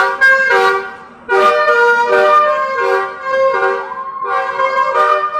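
Telolet basuri musical bus horn playing a melody of stepped, held notes, several horn tones sounding together. It is loud, with a short break about a second in before the tune resumes.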